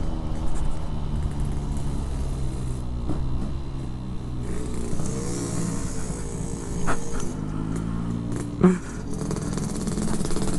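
Yamaha RX-King 135cc two-stroke single-cylinder engine running through a Packing Power PK1 aftermarket exhaust while riding, its pitch rising and falling around the middle. A short sharp knock comes near the end.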